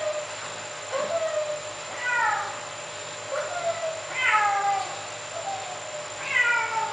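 Kitten meowing over and over, a short call followed by a longer meow that falls in pitch, three times.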